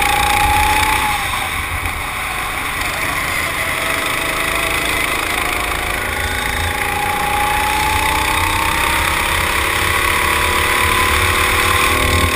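Go-kart's small single-cylinder engine running hard, heard from onboard. Its note drops about a second in, then climbs slowly and steadily as the kart accelerates, falling away again at the very end, over a strong low rumble of wind on the microphone.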